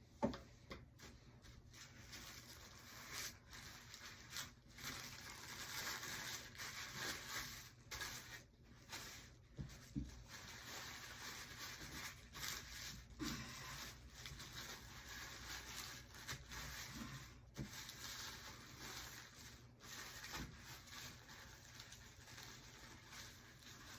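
Faint rustling and rubbing of shirts and packaging being handled and folded, with a few soft knocks, the sharpest just after the start.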